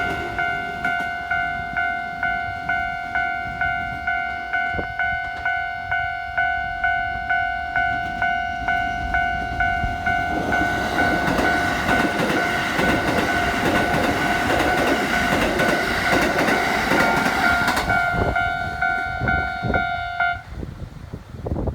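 Japanese railway level-crossing alarm ringing in steady electronic dings, about two a second. About halfway through, a Keikyu line train runs over the crossing with a loud rush of wheels on rail. Near the end the alarm stops abruptly as the crossing clears.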